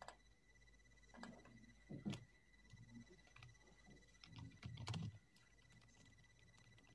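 Near silence: a faint steady high-pitched electrical whine, with a few scattered faint clicks and soft bumps.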